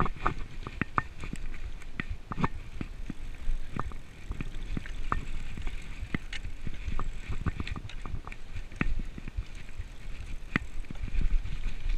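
Mountain bike ridden fast over a dirt forest trail: tyres rolling on the dirt, with frequent sharp rattles and clacks from the bike as it hits bumps, over a steady low rumble.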